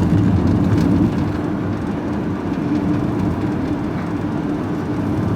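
Engine and road noise heard from inside a vehicle's cab while driving at a steady speed: a steady low drone with a constant hum.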